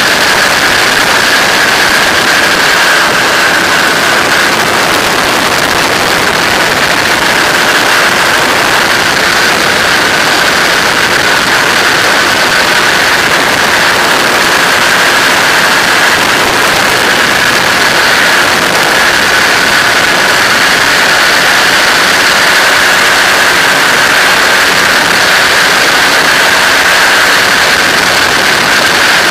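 Flexwing microlight trike's engine running at a steady cruise throttle in flight, a constant drone with no change in pitch, under a steady rush of wind on the microphone.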